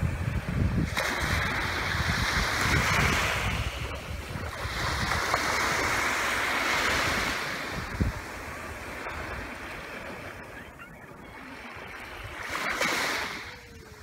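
Small sea waves washing up a sandy beach, each surge swelling and drawing back every few seconds, with a quieter lull in the second half.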